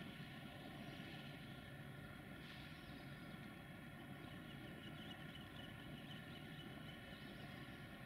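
Faint, steady low rumble of a distant train approaching along the line, with a few faint high chirps over it.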